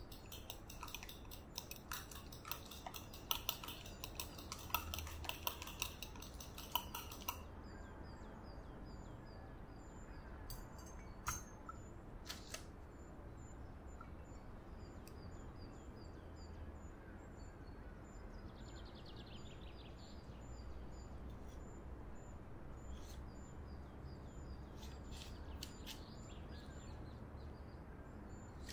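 A utensil beating egg yolk and milk for an egg wash in a small glass bowl: rapid clicking of metal against glass for about the first seven seconds, then a couple of sharp clinks. After that there is mostly quiet room tone with faint, evenly repeated high chirps.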